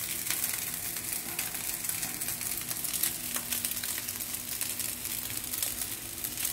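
Rice and egg frying in a hot pan: a steady sizzle with many small crackles.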